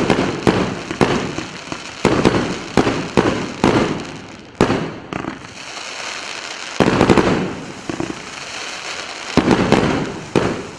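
A 100-shot, 30 mm consumer firework cake firing. A quick run of bangs, about two a second, gives way to a crackling, hissing spell of sparks, and a few more bangs come near the end.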